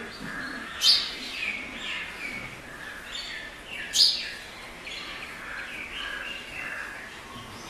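Small birds chirping in a busy, continuous chatter of short calls, with two louder sharp chirps about one second in and again about four seconds in.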